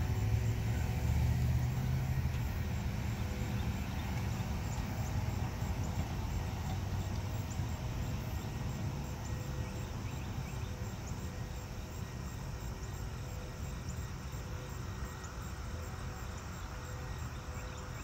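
Low rumble of a loaded coal train moving away down the line, fading steadily as it recedes.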